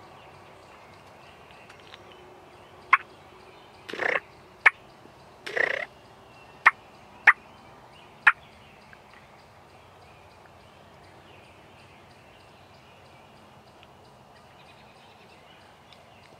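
A wild turkey tom calling close by: two short gobbles among several single sharp notes, all in a burst between about three and eight seconds in.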